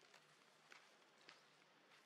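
Near silence, with three faint clicks about half a second apart.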